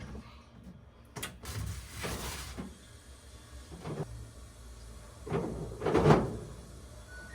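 A few scattered knocks and thuds, like a door or cupboard being opened and shut, the loudest about six seconds in, with a short rustle near two seconds.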